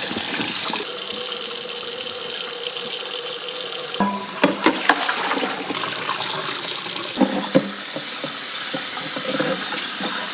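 Kitchen tap running steadily into a sink while raw oxtail is washed clean, with a few sharp knocks of the meat and bowl being handled about halfway through.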